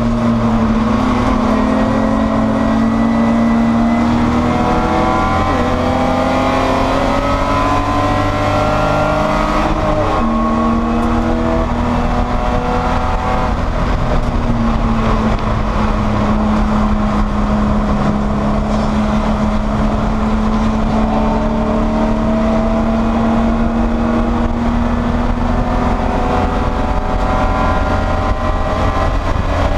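BMW E30 race car's straight-six engine at racing speed, its pitch climbing under acceleration and dropping back at each gear change, twice in the first half, then holding fairly steady before climbing again near the end.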